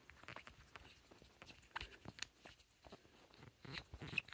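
Faint, scattered small clicks and rubbing of a plastic nut being turned by hand onto the threaded plastic shaft of an old toilet tank lever.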